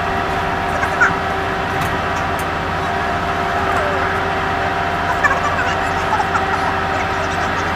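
Steady drone of a ship's machinery, a constant hum holding a few fixed tones with no change, with faint distant voices now and then.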